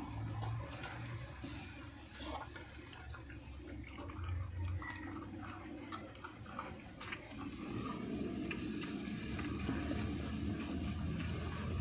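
Wet licking as a mother dog cleans her newborn puppies, a run of short repeated smacks in the first half. A steady low hum sets in about halfway through.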